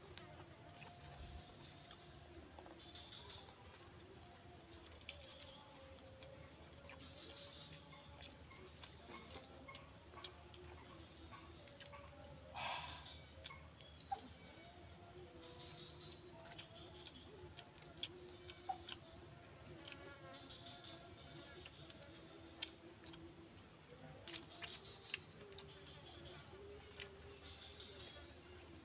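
Steady, unbroken high-pitched trilling of an insect chorus, with a few faint clicks scattered through it and one short louder sound about halfway through.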